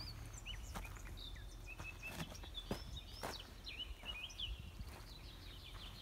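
Small birds chirping and singing in short repeated notes, with a few sharp clicks and a low steady hum underneath.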